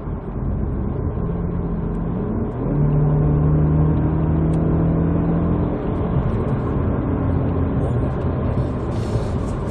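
BMW 320i engine and road noise heard inside the cabin while driving. The engine hum rises and grows louder about two and a half seconds in as the car pulls, holds steady for a few seconds, then eases back.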